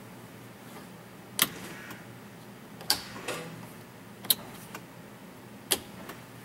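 Dash-mounted Carling Contura rocker switches for the front and rear lockers being flipped on and off: four sharp clicks about a second and a half apart, each followed a fraction of a second later by a fainter click.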